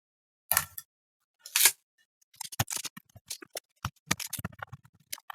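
Small hand tool scraping and clicking against a circuit board: two short scrapes, then a quick irregular run of ticks and taps.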